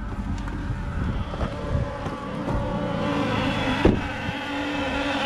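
Dodge Nitro's V6 engine running steadily on engine oil fed in place of gasoline, with one sharp knock about four seconds in.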